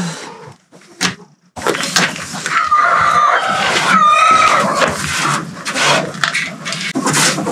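Continuous rasping scrape of paint softened by paint stripper being worked off a painted surface, with two short wavering squeals partway through; it begins after a click and a short pause.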